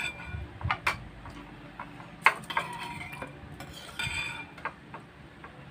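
Metal spoons clinking and scraping against soup bowls as soup is scooped, a handful of sharp clinks with a short ring, the loudest about two seconds in and another cluster around four seconds.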